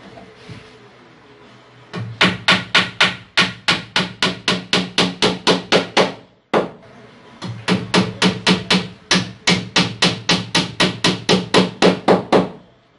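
Ball-peen hammer driving small nails through a plywood shelf into a wooden cabinet panel: two runs of quick, even blows, about four a second, with a short break between them, each blow ringing low in the hollow wooden box.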